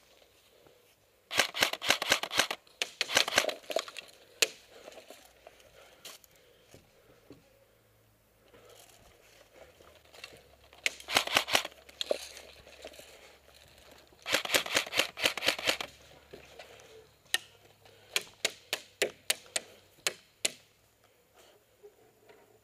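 Airsoft electric rifle firing several short full-auto bursts of rapid clicks, then about a dozen single shots, two or three a second.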